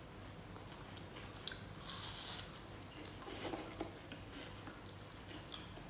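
Quiet eating sounds: chewing and crunching with scattered small clicks, and a short rustle about two seconds in.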